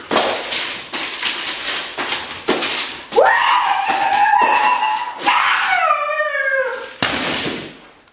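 A run of short whooshing rushes, then a long, high-pitched howling yell held for about two seconds, followed by a second yell that slides down in pitch.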